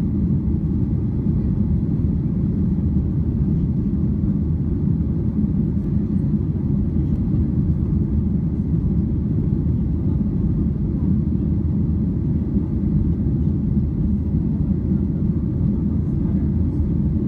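Steady low rumble inside the cabin of a Boeing 737-800 in flight: its CFM56-7 engines and the rush of air over the fuselage, even throughout with no change in pitch or level.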